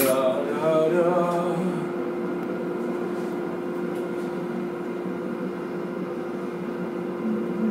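Steady hum of a running kitchen appliance, holding one constant tone.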